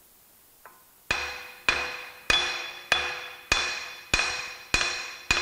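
Hammer blows on a Massey Ferguson 135's rear axle: eight evenly spaced metallic strikes, about one every 0.6 s, each followed by a short ringing. The axle is being bumped inward to its zero point so the rear axle bearing end play can be measured.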